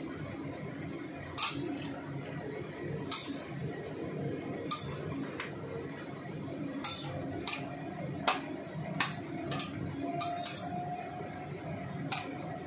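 Metal spatula clinking and scraping against a stainless steel wok while Chinese cabbage and wood ear fungus are stir-fried: about a dozen irregular clanks, the loudest about eight seconds in, over a steady background noise.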